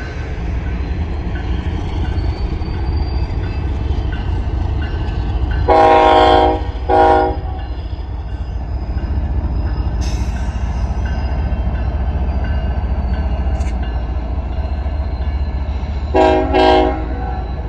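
Union Pacific diesel freight locomotives pulling a double-stack container train, with a steady low rumble throughout. The lead locomotive's air horn sounds a long blast and a short one about six seconds in, then two short blasts near the end, sounding for the grade crossing ahead.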